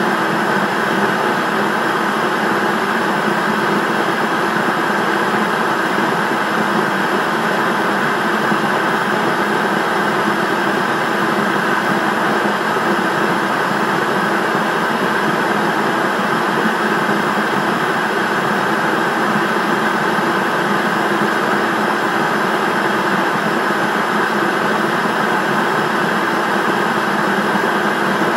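Television static: a steady, loud hiss of analogue TV snow with no change.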